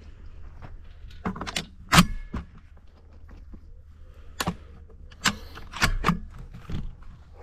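Handling noise from a shotgun, picked up by a camera mounted on the gun: a series of sharp clicks and knocks, the loudest about two seconds in, over a steady low rumble.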